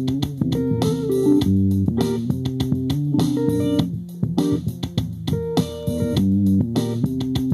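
Funk music played on plucked electric guitar and bass guitar, in short rhythmic notes.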